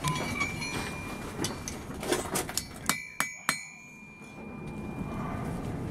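Hand hammer striking an iron rod on a steel anvil: a ringing clink near the start and a few light taps, then three sharp ringing blows in quick succession, about a third of a second apart, partway through.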